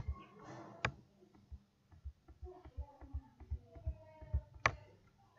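Computer mouse clicking: three sharp clicks, one at the start, one just under a second in and one near the end, with faint low taps and handling noise between them.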